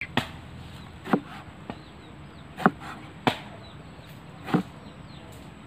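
Cleaver chopping through an eggplant onto a plastic cutting board: about five sharp knocks, unevenly spaced.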